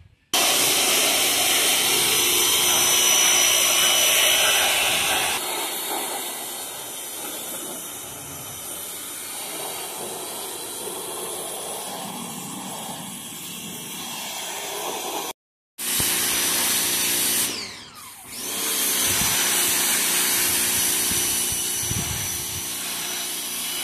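Pressure washer running and spraying: a steady motor hum under a loud hiss of water. It cuts out for a moment a little past halfway, winds down with a falling tone near eighteen seconds in, and starts up again.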